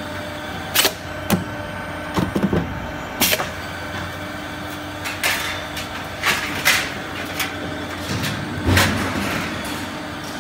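Sheet-metal panel folding mould running with a steady machine hum. Sharp knocks come about a second in and again near three seconds, then a run of short hissing bursts and clanks between about five and nine seconds as the mould works the panel.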